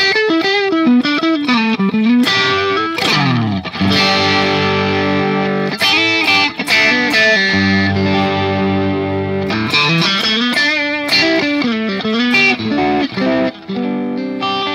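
Telecaster-style electric guitar played through a Valeton GP200's Marshall JCM800 amp model on a crunch tone: bent and vibratoed lead lines, then several seconds of ringing chords, then more bent single notes.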